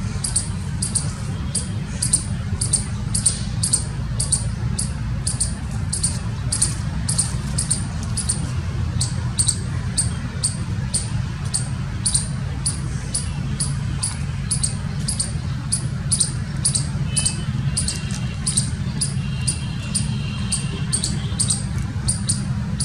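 A squirrel calling a long, unbroken series of short, high, sharp chirps, about three a second, over a steady low rumble.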